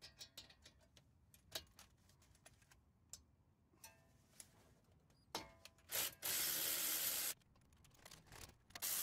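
Cordless electric ratchet with a 7/16 Allen socket running out a caliper bolt: a steady whir of about a second, starting about six seconds in, after scattered light clicks of the socket being fitted on the bolt. Another short run starts near the end.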